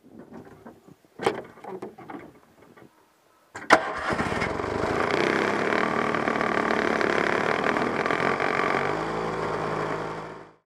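Rustling and a few clicks, then, about three and a half seconds in, a sharp click and the 1969 Polaris Mustang's JLO 372 two-stroke engine catches almost at once on its electric starter. It runs steadily at idle, changes note about nine seconds in, then fades out.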